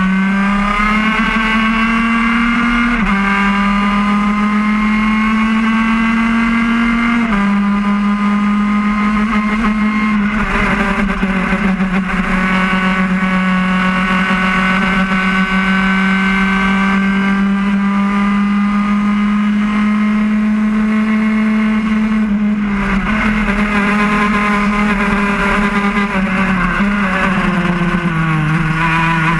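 Laydown enduro kart's two-stroke engine heard onboard under hard acceleration. Its pitch climbs steadily and drops sharply several times, the pattern of shifting up through the gears.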